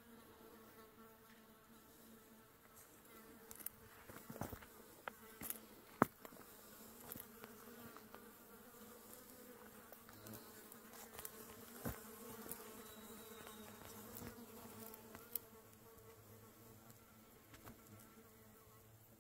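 Flies buzzing around a decaying deer carcass: a faint, steady hum, with scattered small clicks, the sharpest about six seconds in.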